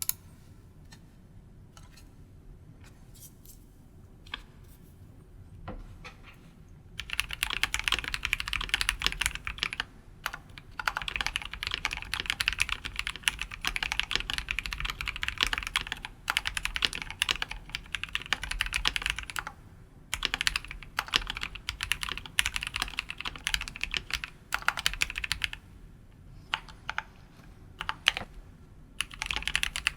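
Mechanical keyboard with linear switches being typed on for a sound test: a few scattered keystrokes at first, then fast continuous typing from about seven seconds in, broken by short pauses and a longer lull near the end.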